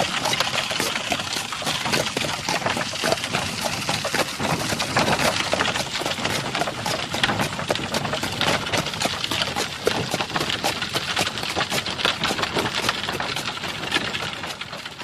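Horse and cart on the move: hooves and the cart's wheels and body making a dense, continuous clatter, which fades out near the end.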